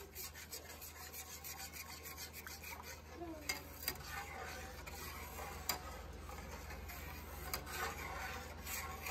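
Slotted metal spatula stirring and scraping thick white gravy around a stainless steel frying pan: a quick run of scraping strokes, several a second, for the first couple of seconds, then slower scrapes with occasional clicks of metal on the pan.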